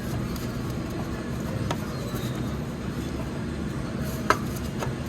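Steady low mechanical hum in a work shop, with a few sharp metal clicks from parts and tools being handled in an engine bay; the loudest click comes about four seconds in.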